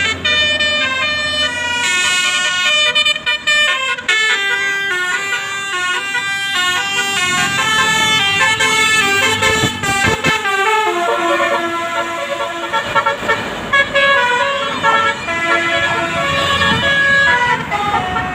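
Bus basuri telolet horn playing a melody: a string of held, stepping horn notes that goes on without a break.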